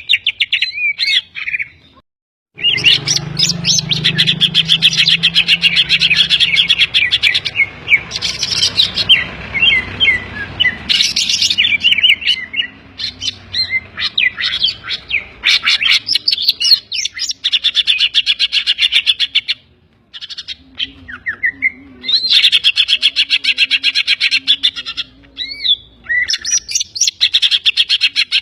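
Cucak ijo (green leafbird) singing: long runs of rapid chattering trills and whistled glides, laced with mimicked songs of the kapas tembak and the tengkek (kingfisher). The song breaks off briefly about two seconds in and dips again near twenty seconds.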